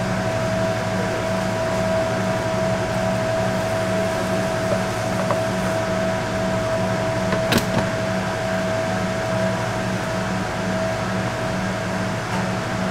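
Steady hum of running kitchen machinery: a constant tone over a low drone that pulses a few times a second. One sharp click about seven and a half seconds in.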